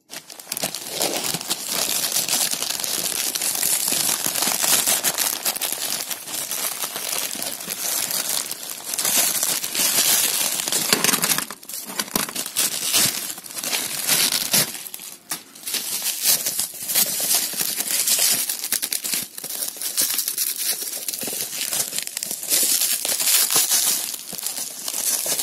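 Crinkly packaging rustling and crackling continuously as it is handled and unwrapped.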